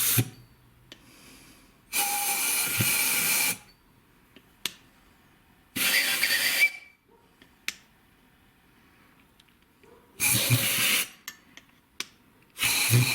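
Compressed air hissing from a blow gun in four short bursts, each about a second long, with a few light clicks in between.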